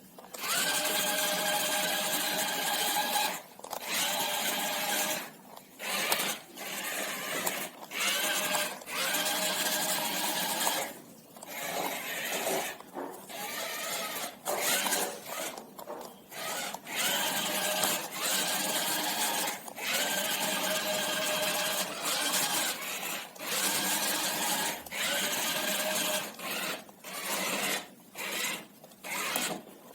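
Small electric motors of a homemade remote-control car running with a whine. They stop and start again many times, with short gaps, as the car is driven.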